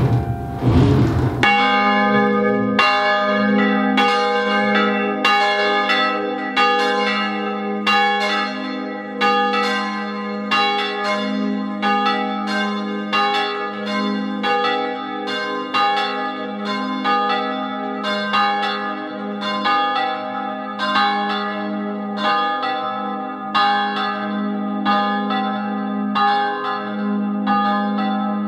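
A church bell ringing in its belfry, struck again and again at a steady even pace from about a second and a half in. Its deep hum carries on under every stroke.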